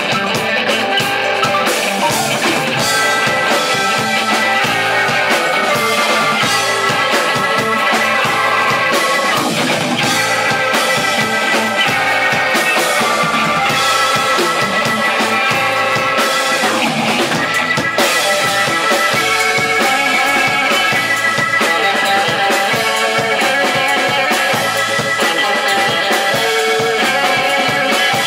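Live mod-jazz instrumental band playing: organ chords from a Hammond XK-3 and Nord Electro 3, electric guitars and a drum kit, without vocals.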